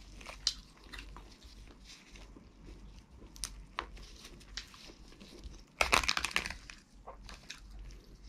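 Boiled crab being broken apart by hand: scattered small cracks and crackles of shell, then a loud burst of cracking about six seconds in as the top shell is pried off the body.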